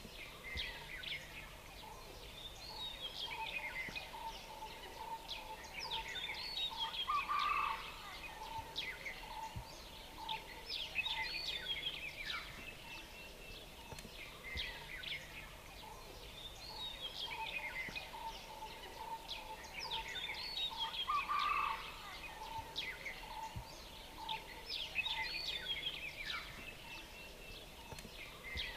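Outdoor ambience of many small birds chirping in short, quick downward-sweeping calls over an even background hiss, with a steady run of soft repeated notes lower down.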